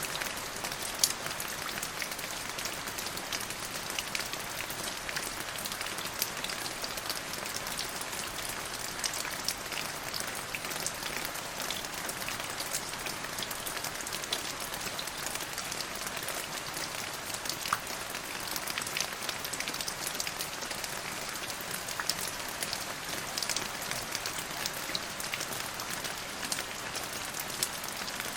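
Steady rain falling on a hard surface, a dense even hiss with many sharp drop ticks.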